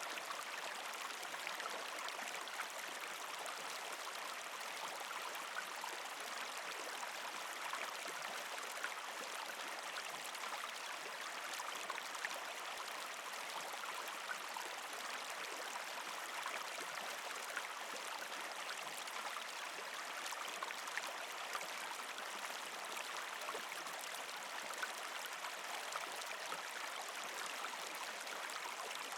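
Partially frozen creek flowing over rocks: a steady rush of water, gurgling and trickling, with many small splashes scattered through it.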